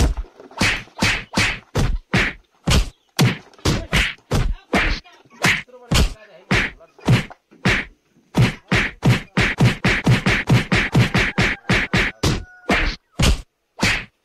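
A rapid string of sharp punch-style whack-and-thud hits, about two a second, coming faster after a short pause near the middle. These are fight sound effects laid over the turkey fight.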